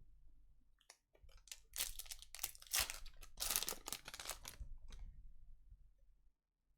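A Topps WWE trading-card pack's wrapper being torn open and crinkled: a dense run of crackling tears, loudest in the middle, that tails off about six seconds in.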